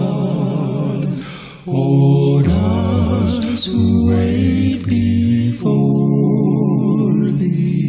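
A cappella gospel quartet singing in close harmony, holding and moving through sustained chords. There is a brief break about a second and a half in before the voices come back in.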